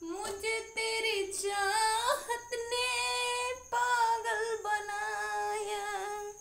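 A woman singing a Hindi song without accompaniment, holding long, gliding notes with a brief break for breath partway through.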